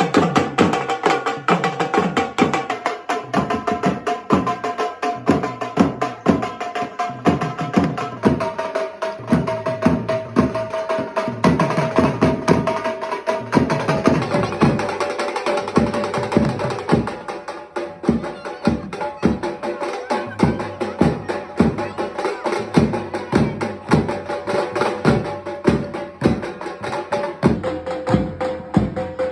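Garba music: a fast, steady dhol drum beat under a held melody. The melody's pitch changes a few times, about every six seconds.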